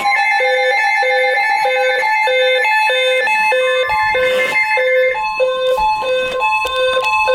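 Several weather alert radios sounding their alarms together for a severe thunderstorm warning. A steady alert tone runs under a two-note beep that alternates low and high about twice a second.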